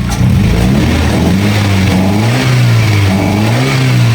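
1993 Nissan 240SX's 2.4-litre four-cylinder engine idling on a bypass fuel pump, its engine speed rising and falling gently about once a second as the idle settles. The pitch of the engine shifts just after the start.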